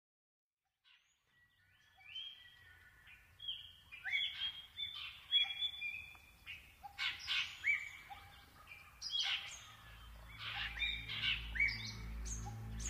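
Birds chirping and calling, many short overlapping calls that start a second or two in and grow busier. About ten seconds in, low music with a steady pulsing beat comes in underneath.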